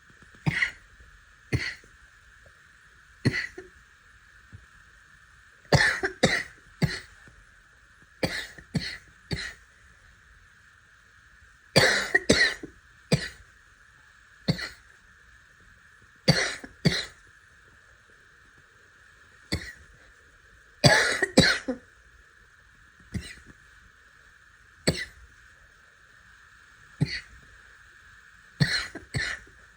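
A person with a harsh barking cough coughing over and over, in single coughs and short fits of two to four, a few seconds apart. It is a barking cough from a sick throat, which the uploader puts down to holding back a cough for too long.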